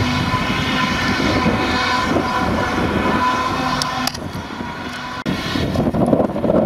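Claas Jaguar 950 forage harvester running under load as it chops grass and blows it into a trailer: a steady engine drone with a high steady whine over it. About five seconds in, it cuts off abruptly and another machine's running takes over.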